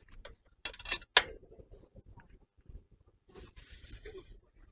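A few sharp metallic clinks about a second in as a wire-mesh grill net is set onto a compact cassette gas stove, then a short rustling hiss near the end.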